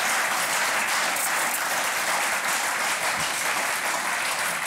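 Studio audience applauding: a steady, dense clapping.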